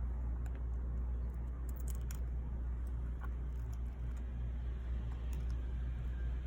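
A steady low hum, with faint scattered ticks and clicks of small tools and parts being handled on the phone.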